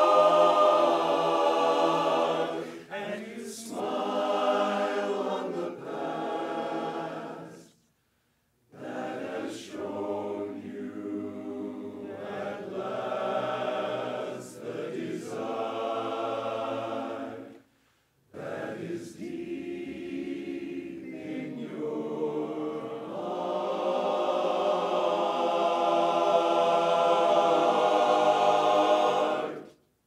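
Men's barbershop chorus singing a cappella in close harmony. The phrases break off into two brief full stops, about eight and eighteen seconds in.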